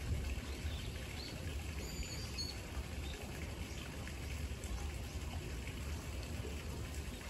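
Steady low background rumble with a few faint, short bird chirps about two seconds in.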